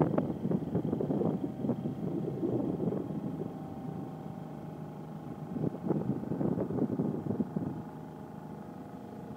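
A crane barge's engine running steadily, with two spells of louder, rough rattling noise: one at the start and another about six seconds in.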